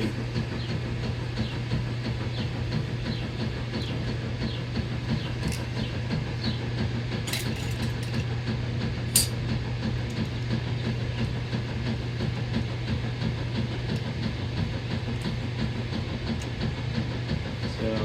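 Steady low hum in the workshop, with a few light metallic clinks as steel and friction clutch plates are lifted out of an Ironhead Sportster's clutch basket.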